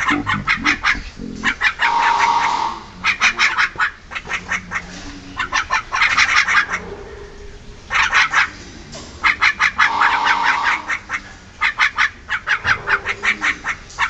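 Javan mynas giving harsh, rapid rattling chatter calls in bursts of about a second each, repeated every second or two.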